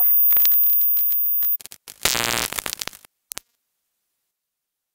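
Glitch sound effects of a logo sting: a faint crackling tail with scattered clicks, a burst of static about two seconds in lasting under a second, then two short clicks before it cuts off.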